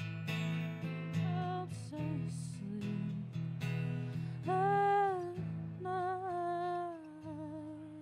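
A woman singing long held notes over a strummed acoustic guitar, live.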